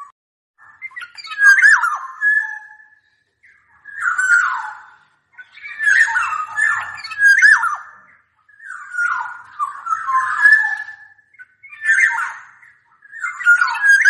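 Black-naped oriole (kepodang) singing: short, fluty whistled phrases repeated about every two seconds.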